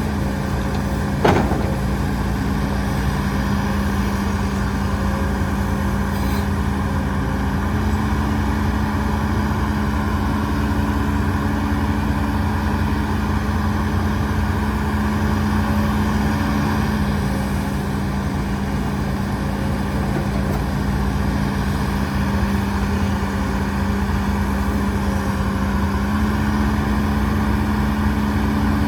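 Heavy diesel engine of earthmoving machinery running steadily, its pitch stepping up slightly, easing back, then rising again near the end as the load or revs change. One sharp metallic knock about a second in.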